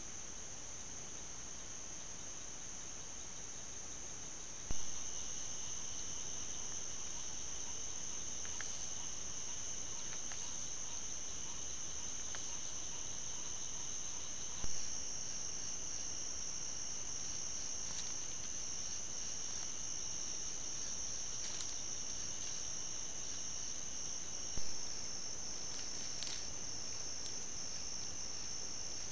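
Chorus of night insects trilling steadily at a high pitch. Three sharp clicks about ten seconds apart, where one trail-camera clip ends and the next begins.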